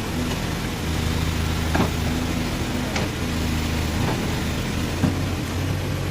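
Diesel engine of a Case 851EX backhoe loader running at a steady speed while it digs, with a few short knocks.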